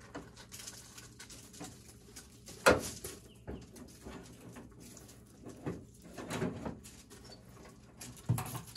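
Metal clatter of a wire grill rack being handled and slid into a small Masterbuilt electric smoker, with a sharp knock about three seconds in, more handling noise later and another knock near the end as the smoker is closed up.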